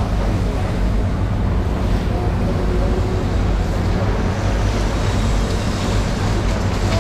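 Water spraying from a hose onto a wet concrete floor, a steady rushing hiss over a continuous low rumble.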